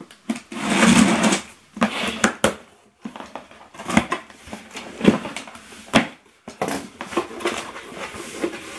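Cardboard box being opened by hand, with its packaging rustled: irregular bursts of rustling and scraping, broken by a few sharp clicks.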